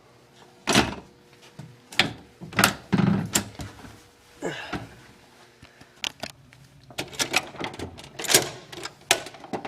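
A pair of doors on hydraulic door closers swinging and shutting, with a string of sharp clunks and latch clicks. The one door has to close before the other can latch.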